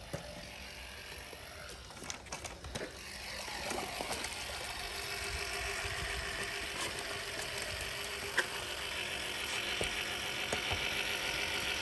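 Pool Blaster Fusion PV10 battery-powered handheld pool vacuum running in the water, a steady mechanical whir that grows louder about three and a half seconds in. A few sharp clicks come in the first few seconds.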